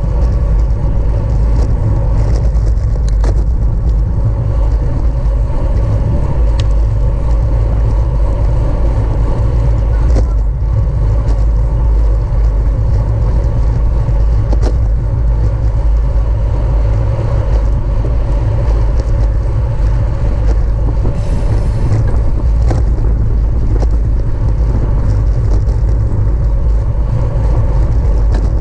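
Wind rushing and buffeting on the microphone with a steady low rumble, as a bicycle is ridden at racing speed. The sound stays loud and even throughout.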